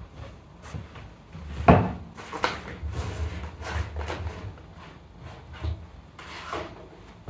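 A string of irregular knocks and clunks, the loudest about one and a half seconds in, with a low rumble under them in the middle.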